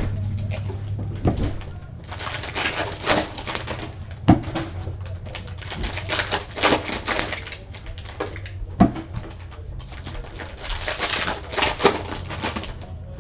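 Foil trading-card packs being torn open and crinkled, with cards being handled, in three spells of crackling rustle and a few sharp clicks in between. A low steady hum runs underneath.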